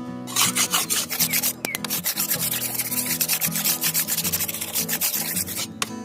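Hand sanding of wood: sandpaper rubbed back and forth in quick strokes. It starts about a third of a second in and stops shortly before the end, with guitar music underneath.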